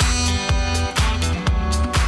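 Upbeat dance music with a steady kick-drum beat about twice a second, and a live saxophone holding melody notes over the backing track.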